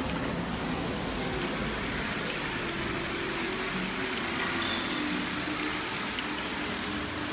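Steady outdoor background noise with a low, even engine-like hum and no distinct events.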